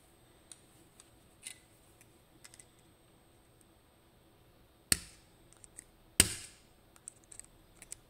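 Small metallic clicks and two sharp snaps about a second apart, made by pliers working the plug retainer at the back of a Ruko 500 pin-tumbler lock cylinder, the first step in taking the lock apart.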